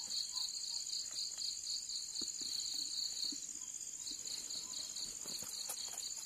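Crickets chirping: a high chirp repeated in quick, even pulses, about four a second, with a brief pause about three seconds in, over a higher, steady trill. Faint rustles and small clicks of a fabric bag being handled.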